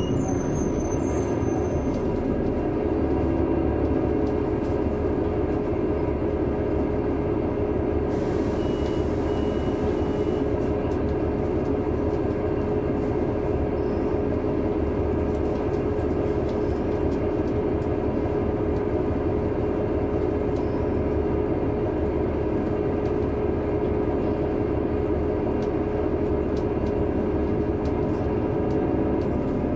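Caterpillar C9 ACERT diesel engine of a 2003 Neoplan AN459 articulated bus, heard from on board, running steadily with a loud, even drone and a held tone. There is a brief hiss about eight seconds in.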